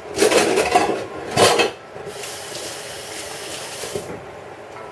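Kitchen dishes and utensils clattering in two loud bursts, then water running from a tap for about two seconds before it is shut off abruptly.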